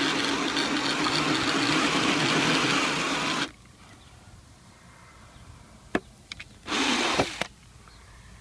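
Cordless drill spinning a hole saw through vinyl siding: a steady motor whine with grinding that stops suddenly about three and a half seconds in. A couple of clicks and a short second burst come a few seconds later.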